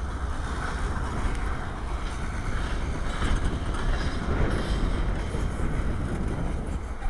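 Freight train cars, a boxcar and covered hoppers, rolling past on the rails: a steady rumble with no clear wheel-click rhythm.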